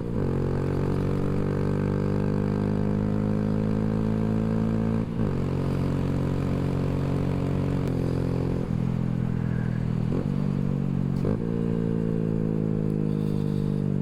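Honda Grom's single-cylinder engine running under load on the road, with the airbox fed by a ram air intake cover, which makes it sound aggressive. Its steady pitch breaks off briefly about half a dozen times, each time dropping and then climbing again, as with throttle changes or gear shifts.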